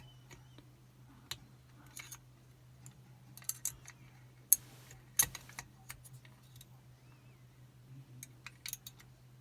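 Scattered small metallic clicks and scrapes of a picking wire and tension tool working inside a Chubb Detector lever lock to throw the bolt, with one sharper click about four and a half seconds in.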